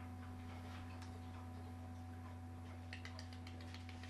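Steady low electrical hum with faint scattered ticks, and a quick run of clicks about three seconds in.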